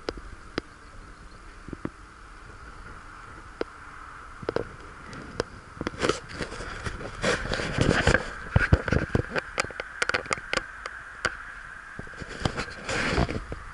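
Riding noise of a bicycle on a concrete path, picked up by a camera mounted on the bike: a steady hiss with many sharp clicks and knocks, densest and loudest from about six to eleven seconds in.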